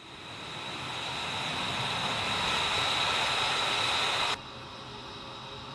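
F-22 Raptor's twin Pratt & Whitney F119 jet engines running on the ground: a steady high-pitched whine over a rushing hiss, fading in over the first second or two, then dropping suddenly to a quieter hiss about four seconds in.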